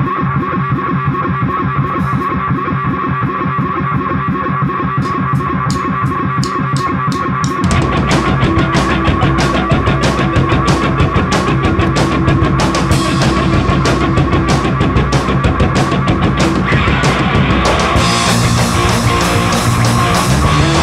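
Rock music soundtrack led by electric guitar; the full band with drums and bass comes in about eight seconds in, and the music gets louder and fuller.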